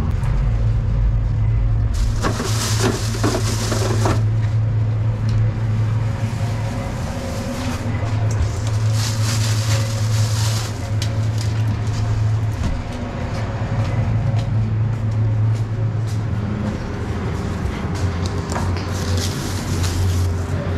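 Steady low hum of commercial kitchen machinery. Plastic bags crinkle and rustle in short bursts as they are handled, around two seconds in, about halfway through and near the end.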